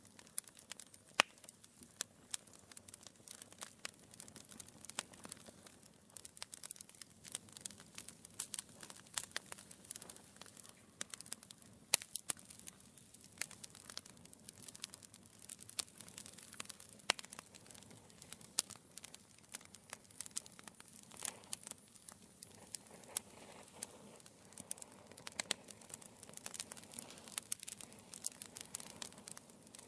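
Wood fire burning in a fireplace, crackling with many small irregular pops and snaps over a faint hiss.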